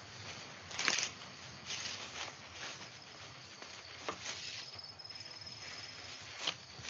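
Fresh ramie stalks being stripped of their leaves by gloved hands: leaves rustling and swishing in repeated strokes, with a few sharp clicks of stems.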